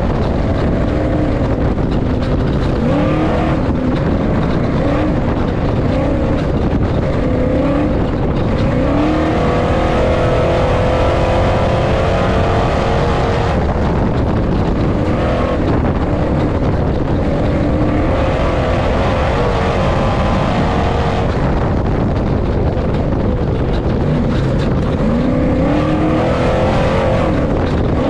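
Ford Ranger race truck's LS3 V8 race engine running hard, heard from inside the cab, its pitch climbing several times, over a loud steady rush of road noise on rough desert dirt.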